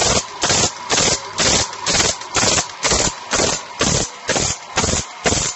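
Automatic saw-blade sharpening machine grinding the blade tooth by tooth: a regular grinding stroke about twice a second, over a steady hum.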